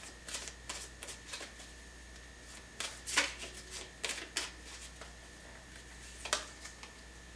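A tarot deck being shuffled and handled by hand: irregular short papery riffles and snaps, the loudest a little past three seconds in and another about six seconds in.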